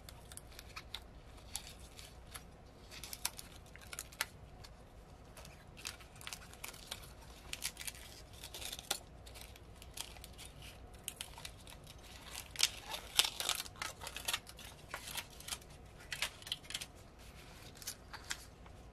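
Protective film being peeled off a laptop hard drive by hand: irregular crinkling and tearing crackles, busiest about two-thirds through.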